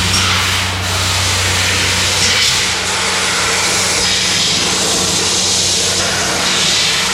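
A steady rushing, hissing noise that swells and eases slowly.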